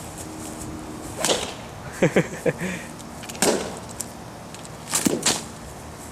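Golf club swung hard at a foam RC plane: a series of swishing strikes and hits, with a quick flurry of blows in the middle.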